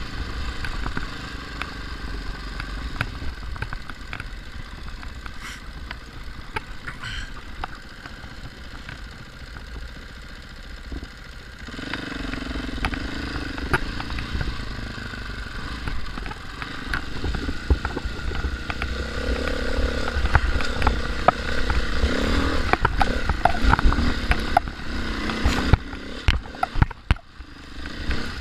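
Dual-sport dirt bike's engine running under the rider on a rough trail, with clattering over rocks and ruts and a steady low wind rumble on the microphone. The engine gets louder about twelve seconds in and revs up and down through the second half, then drops away briefly near the end as the bike slows.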